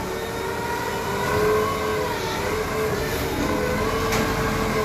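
A machine running steadily, a droning hum with a few held whining tones over a noisy background.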